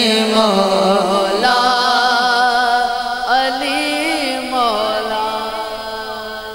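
A man's solo voice singing an Urdu naat into a microphone, drawing out long ornamented notes that waver and turn in pitch, growing softer toward the end.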